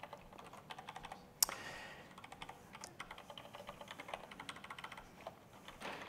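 Typing on a computer keyboard: faint, quick key clicks in irregular runs, with one louder keystroke about a second and a half in.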